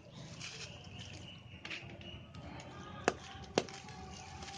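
Crumbly red sand-cement chunks being crushed, with many small crunching crackles and two sharp cracks about half a second apart past the middle.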